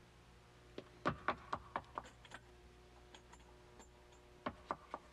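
Quick footsteps: a run of short sharp taps, about four a second, then a pause and a few more taps near the end, over a faint steady hum.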